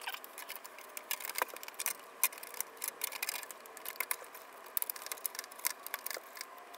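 Many small, irregular clicks and taps of hard plastic and metal parts knocking together as a blaster kit's silver tube assembly is handled and seated into a plastic Nerf blaster shell.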